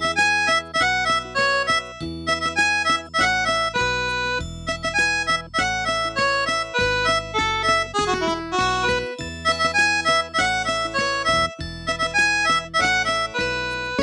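Polyphonic ringtone of a BenQ-Siemens EF51 mobile phone playing: a fast synthesized melody of short, clipped notes over a bass line.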